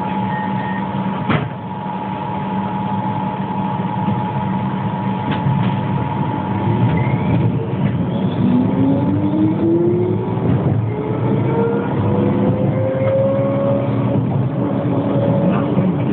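Pesa 120Na low-floor tram heard from inside the passenger compartment while travelling: a steady electrical hum and running rumble with a single sharp knock about a second and a half in. From about eight seconds in the traction drive's whine rises steadily in pitch as the tram accelerates.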